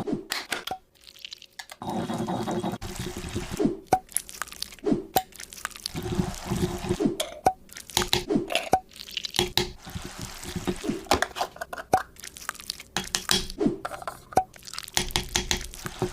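Liquid pouring and dripping in short stop-start bursts, with many sharp clicks and taps in between.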